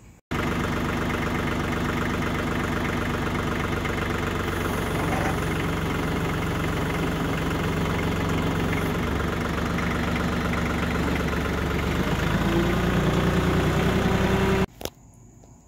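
Branson 2515 compact tractor's three-cylinder diesel engine running steadily while the front loader holds up and moves a rotary cutter. About 12 seconds in it gets louder and a higher whine joins it, and then it cuts off suddenly.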